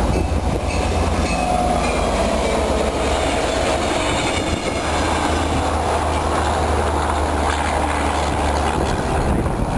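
Diesel-hauled Tri-Rail commuter train passing close by, a loud steady rumble and rush of wheels on rail.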